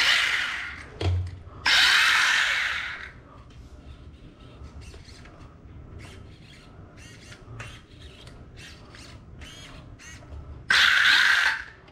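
Brushless motor and metal gear drivetrain of a Mantis S911 Pro RC buggy whirring in three short bursts as the throttle is blipped, with the wheels spinning freely in the air. Between the bursts there are faint scattered clicks.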